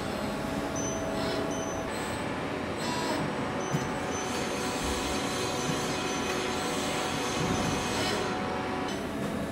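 Press brake running while it bends a steel sheet: a steady machine hum, with a few short high beeps in the first three seconds and a stronger hiss from about three seconds in until near the end.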